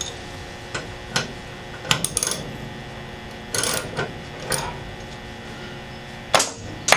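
Irregular metallic clicks and clanks of a hand tool working the roll-up door's lift-assist spring and cable hardware, with two louder knocks near the end.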